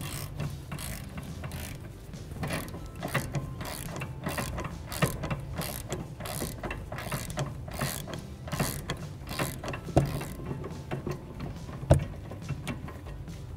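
Ratchet wrench clicking in quick runs as it turns the 17 mm socket on the lower rear strut mount bolt, with two louder knocks near the end.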